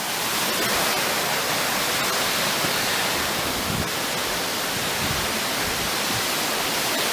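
Steady, even rush of fast-flowing water from a stream or waterfall.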